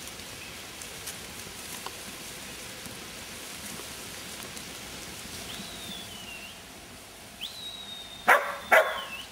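Two high shepherd's whistle commands to a herding dog, the second held about a second before dropping at the end, over a steady hiss. Near the end a sheepdog barks twice, loudly.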